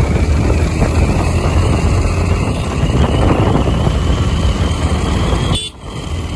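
Motorcycle running at road speed, with wind rushing over the microphone and a steady low rumble. The sound drops out briefly about five and a half seconds in, then comes back.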